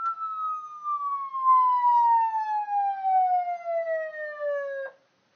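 HornBlasters 100-watt PA siren sounding a wail: a single tone slides slowly down in pitch for about five seconds, then cuts off suddenly.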